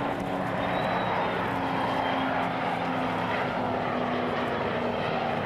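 Mixed formation of F-15 and XF-2 jet fighters with a T-3 propeller trainer flying past: a steady rush of jet engine noise, with a few engine tones sliding slowly down in pitch as the aircraft go by.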